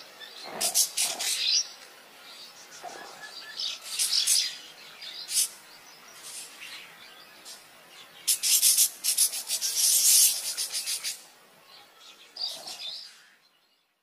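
Parakeets calling: harsh, rapid screeching chirps in bursts, the longest and loudest run about two-thirds through, fading out near the end.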